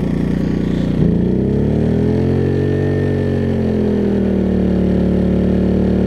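Generac iQ2000 inverter generator's engine taking on the load of an electric water heater. About a second in its note changes and climbs, peaks, then settles into a steady, higher run as it works near its maximum output of about 12 amps.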